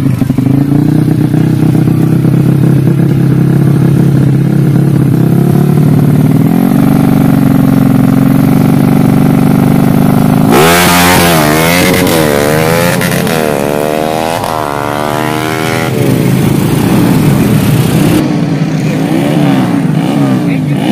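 Yamaha Jupiter Z single-cylinder four-stroke, bored to 130 cc with a PWK 32 carburettor and JRM exhaust, running steadily at a raised idle, then revved in quick repeated throttle blips, rising and falling, from about ten seconds in. Near the end a motorcycle engine is heard revving again after a cut.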